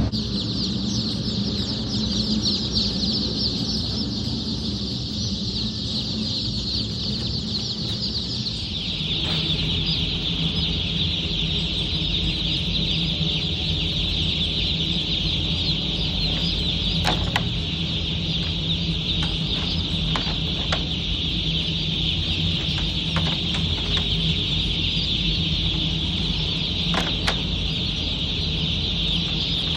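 A large flock of day-old broiler chicks peeping together in a dense, continuous high-pitched chorus. A steady low hum comes in about nine seconds in, and a few sharp knocks sound in the second half.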